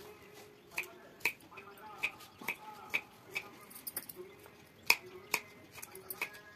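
Kitchen knife chopping a peeled cucumber into chunks on a wooden cutting board: a run of sharp knocks, about two a second, as the blade goes through and strikes the board.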